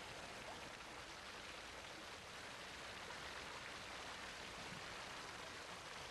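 Faint, steady patter and hiss of a thin waterfall spilling off a sandstone cliff and splashing onto the lake surface and the boat.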